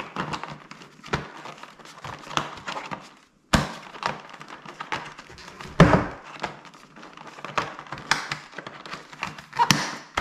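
A Johnny Reb Zeal full-face motorcycle helmet being pulled on and worked into place by hand: its shell and padding rustle and scrape, with many small knocks and clicks and a louder thump about six seconds in.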